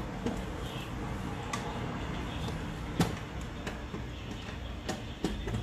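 Scattered light clicks and knocks, about six in all, from hands working at the back of a desktop PC case, handling and plugging in cables, over a low steady hum.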